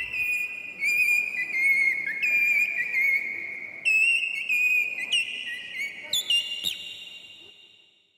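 Birdyman tongue whistle, a bird-call whistle held on the tongue with a plastic membrane, played in a run of high bird-like warbling: held notes broken by quick chirps and slides. It fades out near the end.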